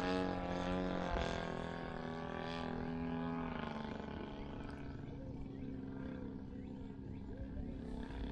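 Desert Aircraft DA-120 twin-cylinder two-stroke gas engine of a Flex Mamba 120 RC aerobatic plane droning in flight. Its pitch shifts about a second in and drops around three and a half seconds in, and it is fainter after that.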